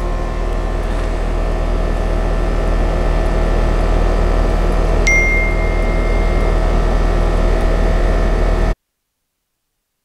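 Outdoor HVAC condensing unit running with its service panel off: a steady mechanical hum with several held tones. About halfway through there is a click and a short high beep, and the sound cuts off abruptly near the end.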